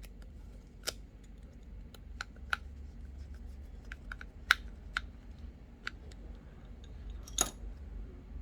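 Small metal repair tools clicking and tapping on an opened iPhone 12 as screws are fitted back. The ticks are scattered and irregular, the loudest about four and a half seconds in, with a short cluster near the end.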